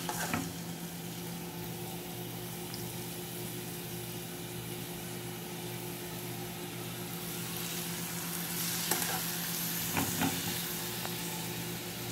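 Seasoned chicken fillets sizzling as they are laid into a hot non-stick frying pan with a drizzle of olive oil, a steady hiss that grows a little louder in the second half as more pieces go in. A few light clicks of a fork against the pan or bowl.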